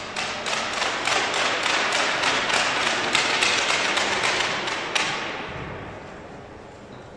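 Spectators clapping after a point, several sharp claps a second over a wash of applause, dying away after about five seconds.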